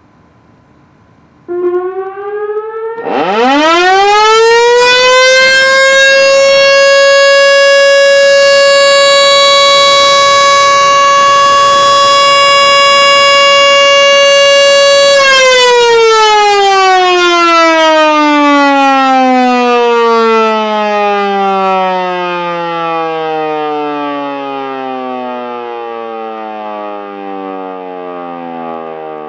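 Civil defense siren sounding on test: it starts a little under two seconds in, winds up to a steady, loud tone held for about ten seconds, then winds down slowly, falling in pitch to the end.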